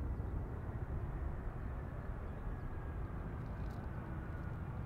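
Jet airliner approaching to land: a steady low engine rumble with a faint high whine that slowly falls in pitch.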